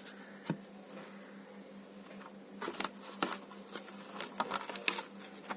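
Hands handling small objects: a click about half a second in, then a quick run of clicks and rustles over the second half, over a steady low electrical hum.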